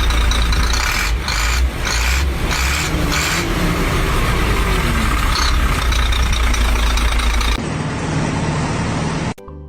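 A loud motor running with heavy rumble. The sound changes abruptly about seven and a half seconds in and again near the end.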